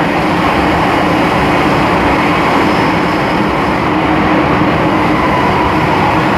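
Inside an MTR M-Train subway car running through a tunnel at steady speed: a loud, even rumble of wheels and running gear, with a few steady hums and no rise or fall in pitch.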